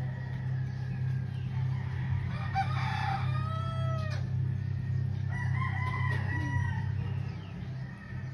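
Rooster crowing twice, one long crow about two seconds in that cuts off sharply and another about five seconds in, over a steady low hum.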